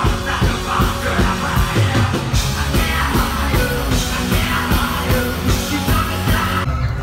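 Loud rock music with drums and a singing voice. Near the end the high end drops away abruptly and the music goes on thinner.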